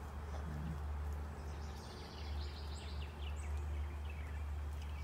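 Outdoor farm ambience: faint birdsong, a series of high notes stepping down in pitch, over a steady low rumble.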